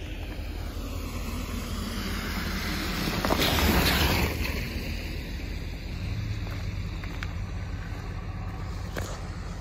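A car passes close by on the wet road about three and a half seconds in, its tyres hissing through the water as it goes. Under it runs a steady low rumble of engines and wind on the microphone.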